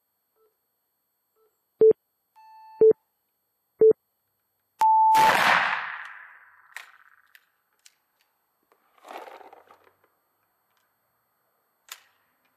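Three short beeps a second apart and a longer, higher start beep, with an M1866 Wänzl rifle firing a 14x33R black-powder cartridge right on it; the loud shot echoes and dies away over about two seconds. Afterwards come small clicks and a brief rustle as the breech is worked for the next rapid-fire shot.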